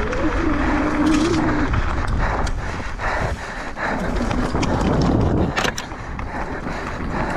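Commencal Meta V5 enduro mountain bike descending a rough dirt trail at speed, recorded from the rider's camera: steady tyre and trail rumble with wind on the microphone, broken by frequent short knocks and rattles from the bike over the bumps.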